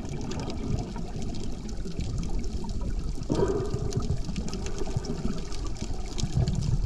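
Water sloshing and bubbling around an action camera held just under the sea surface, with many fine crackles, and a brief louder gurgle about three seconds in.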